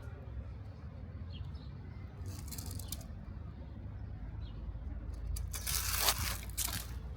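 Scraping, rustling noise in two bursts, a short one about two seconds in and a longer, louder one near the end, over a steady low rumble.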